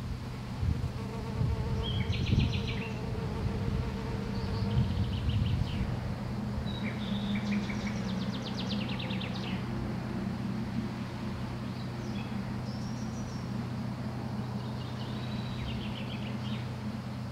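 Small songbirds singing short, high trilled phrases every few seconds, over a steady low buzzing hum, with some low rumbling in the first few seconds.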